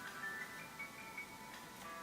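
Background music: a simple melody of high, held, bell-like notes stepping from one to the next.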